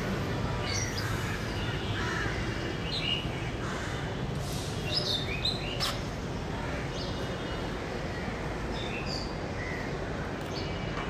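Outdoor birds chirping and calling in short scattered notes, busiest in the first half, over a steady low background noise, with a brief sharp click about six seconds in.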